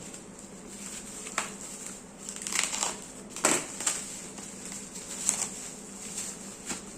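Packaging being handled during an unboxing: irregular crinkling and rustling, with several louder scrapes in the middle.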